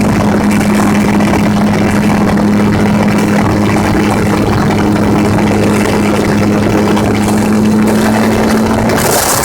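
Gyrocopter's engine and propeller droning steadily in flight, with a strong even hum. A rush of hissing noise comes up near the end.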